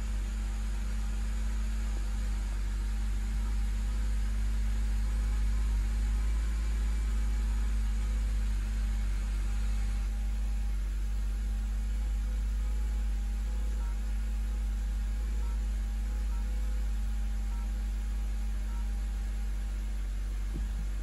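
Steady low rumble and hum inside the car's cabin, unchanging throughout.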